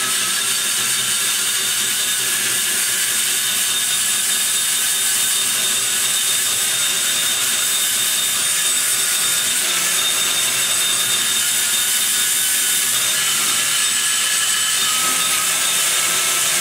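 Die grinder running steadily with a burr cutting into the aluminum exhaust port of a Dart Pro One big-block Chevy cylinder head, removing raw material from the port.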